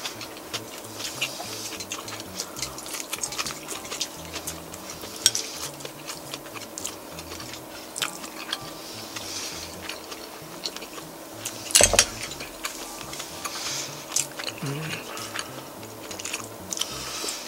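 Eating with chopsticks from a ceramic rice bowl: light clicks of the chopsticks against the bowl and chewing, with one louder knock about twelve seconds in.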